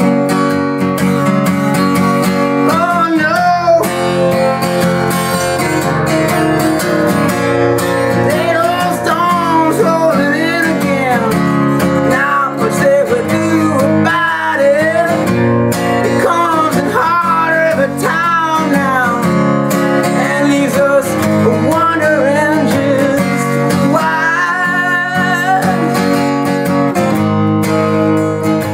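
Acoustic guitar playing an instrumental break in a folk-blues song, chords ringing steadily under a melody line that bends up and down in pitch.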